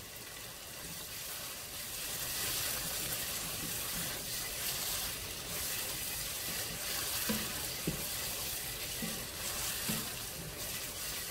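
Red berbere-and-tomato sauce sizzling in oil in a pot while a wooden spoon stirs it, with a few light knocks of the spoon against the pot in the second half.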